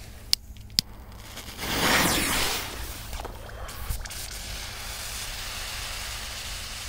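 Two sharp clicks, then a rush of hissing lasting about a second, starting about one and a half seconds in, as the fuse of a Jumbo firecracker is lit; a lower steady hiss follows while it waits to go off.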